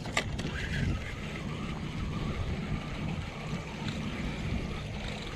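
Steady low wind rumble on the microphone, with a sharp click about a quarter second in and a spinning reel being wound in after a cast.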